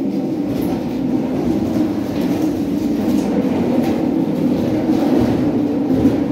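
A tall wooden wardrobe being pushed and slid across the floor, making a steady scraping rumble.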